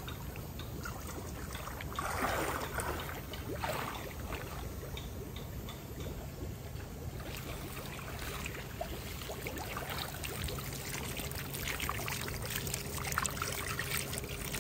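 Water sloshing and trickling as a hand net is swept through a shallow fish pond and lifted out. The loudest splash comes about two seconds in.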